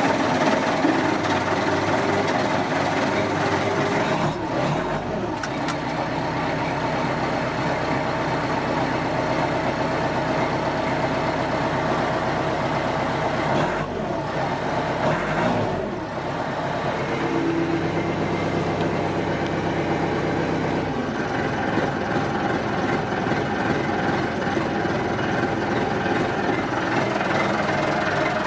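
1992 Massey Ferguson 50HX backhoe's diesel engine running steadily, its note shifting a few times, about five, fifteen and eighteen to twenty-one seconds in.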